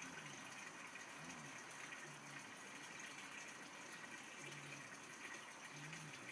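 Faint steady background hiss, close to near silence, with several faint, short, low notes scattered through it.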